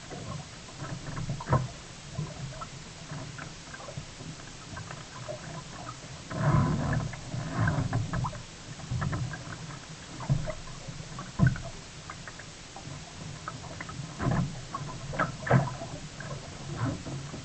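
Sea kayak on the water: irregular splashes and knocks of paddling and water against the boat, every second or two, over a steady low rumble.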